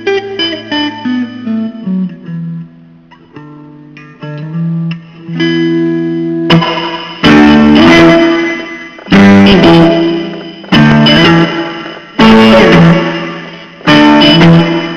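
Blues guitar playing: soft picked single notes, then from about halfway loud chords struck roughly every second and a half, each ringing out and fading.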